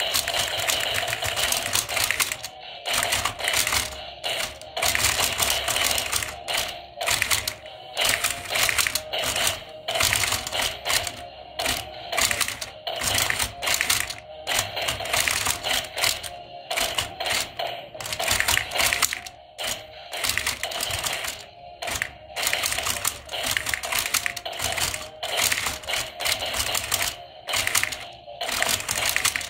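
Toy boxing robot set punching away: a rapid, irregular clatter of plastic arms, gloves and gears, many clicks a second, over a steady mechanical whine.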